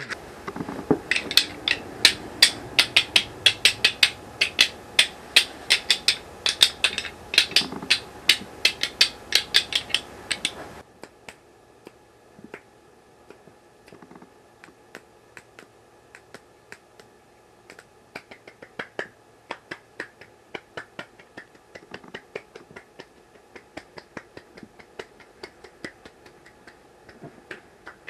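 A run of sharp clicks, about four a second and loud over a noisy background for the first ten seconds or so. Then the background cuts off suddenly and fainter, more scattered clicks carry on.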